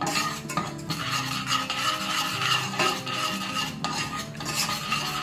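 A spoon stirring and scraping around a stainless steel saucepan, in repeated strokes. The sugar in the pan is melting without any water added, the start of a dry caramel.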